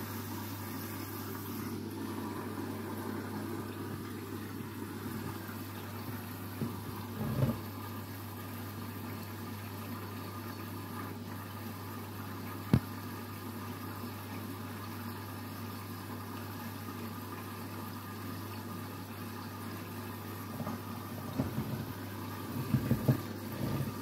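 Front-loading washing machine running with its drum turning through soapy rinse water: a steady low motor hum, with a few soft knocks and a single sharp click about halfway through.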